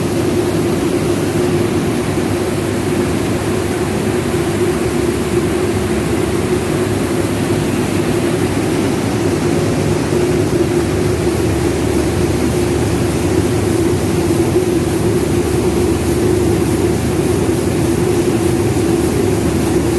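Rice milling machine running at full work, a loud, steady machine din with a constant hum underneath.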